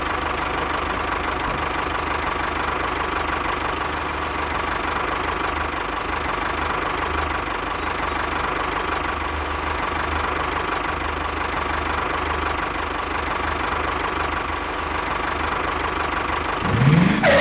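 Single-cylinder diesel engine of a walking tractor running steadily at idle, with a short rising whine near the end before it cuts off.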